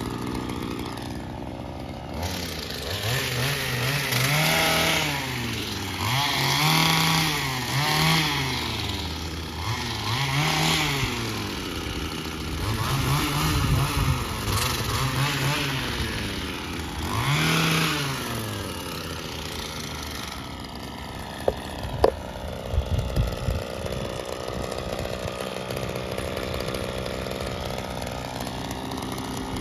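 Small two-stroke engine of a handheld power tool revved up and down over and over, each rev a rise and fall in pitch lasting a second or two, then running lower and steadier. A few sharp clicks come about two-thirds of the way through.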